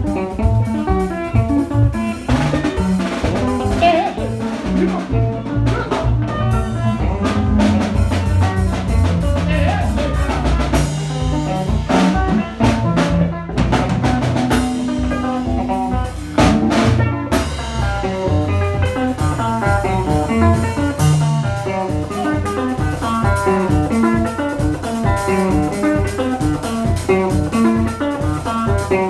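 A small band playing together live: a drum kit with cymbals keeping a steady beat, an electric bass playing moving low notes, and an electric guitar.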